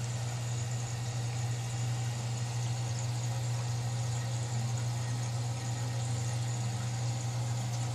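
Running aquarium equipment giving off a steady low electrical hum with a faint, even hiss above it, unchanging throughout.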